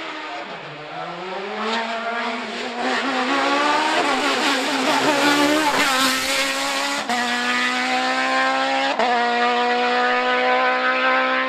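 Racing car engine accelerating hard. Its pitch drops briefly in the first second, then climbs steadily, with quick upshifts about seven and nine seconds in.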